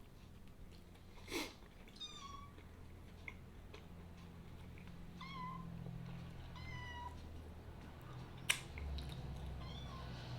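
Kitten meowing: four short, high-pitched meows spread across the few seconds, each trailing slightly downward. A sharp click about eight and a half seconds in.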